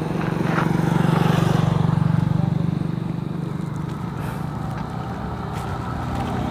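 An engine running steadily with a low, fluttering hum, a little louder about one to two seconds in.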